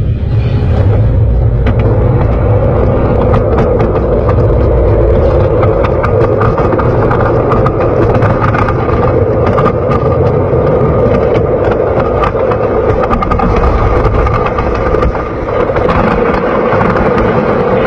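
Wooden roller coaster train rolling along the track, heard from on board: a steady low rumble with frequent short clicks and rattles. Near the end the train reaches the lift hill chain.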